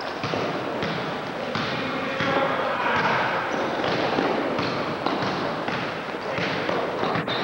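A basketball being dribbled and players running on a gym floor: a steady string of thuds and knocks, with indistinct voices in the background.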